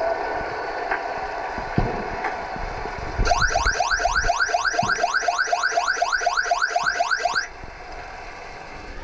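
Underwater hockey stoppage signal heard underwater: a rapid run of rising electronic chirps, about five a second, for about four seconds, starting about three seconds in and cutting off suddenly, signalling a halt in play. Before it, underwater hiss of the game with a couple of dull knocks.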